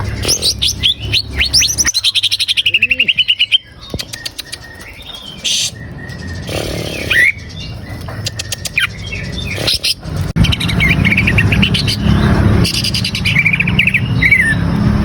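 Cucak ijo (green leafbird) singing: a fast, loud run of chirping trills, then scattered calls and whistles, and another run of trills near the end. A low steady hum runs under the song from about ten seconds in.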